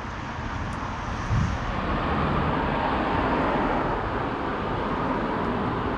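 Road traffic noise with a vehicle passing, swelling a couple of seconds in and easing off slightly after.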